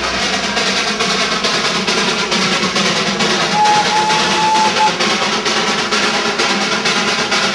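Darjeeling Himalayan Railway B Class 0-4-0 saddle tank steam locomotive working past, its exhaust beating in a fast, even rhythm. A short whistle note sounds about three and a half seconds in.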